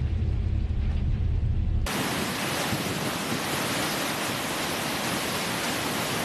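A low rumble for about two seconds, then a sudden switch to a steady, loud rushing hiss of seawater breaking over a surfaced submarine's bow.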